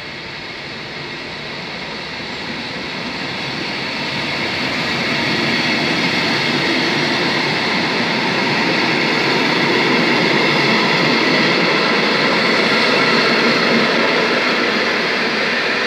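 Passenger train coaches rolling past along the platform: the steady noise of wheels on the rails grows louder over the first five seconds or so, then holds.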